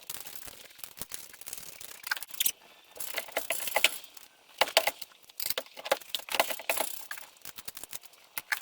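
Irregular metallic clinking and rattling from hand tools and door-hinge hardware being worked on a truck door, in scattered clusters of clicks.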